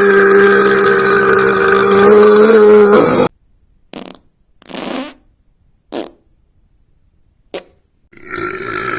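A long, loud fart held on one steady pitch, cutting off suddenly about three seconds in. It is followed by four short, quieter bursts and another longer noise near the end.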